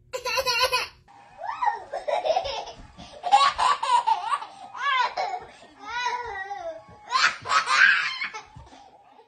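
A baby laughing in a string of high-pitched bursts, with short breaks between them.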